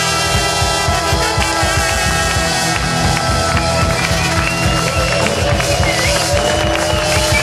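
Live rock band with brass playing loudly: a driving drum kit, electric guitars and bass, with long held notes over the beat.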